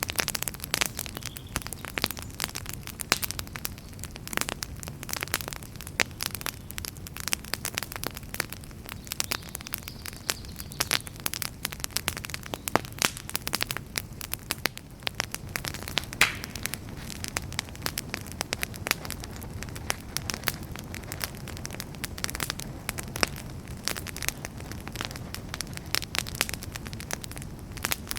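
Wood campfire burning, with frequent irregular pops and snaps over a low steady rumble; one sharper pop about halfway through.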